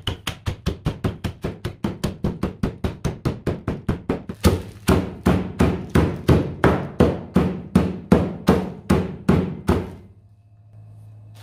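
A wooden rolling pin beating Maria cookies inside a thick plastic bag on a granite countertop, crushing them to crumbs: a fast, even run of blows, about five a second, that stops about ten seconds in.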